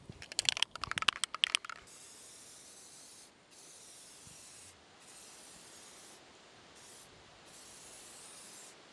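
Aerosol can of black spray paint: a quick rattle for about the first two seconds, then a steady spray hiss broken by several short pauses between passes.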